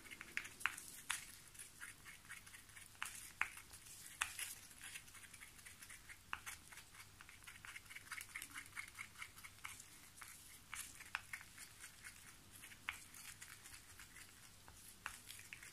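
Faint, irregular small clicks and scrapes of a stirring stick working against the side of a plastic mixing cup as pigment powder is stirred into epoxy resin, with quicker runs of ticks now and then.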